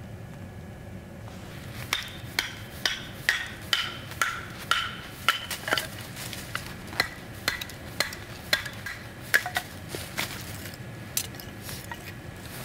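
Repeated metal strikes, each with a short ringing tone, about two a second. They begin about two seconds in and stop about ten seconds in, with a few fainter clicks after. A steady hiss runs underneath.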